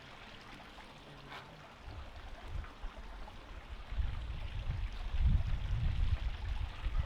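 Steady rush of running water, like a small stream. From about two seconds in, uneven low rumbling on the microphone joins it and grows loudest near the end.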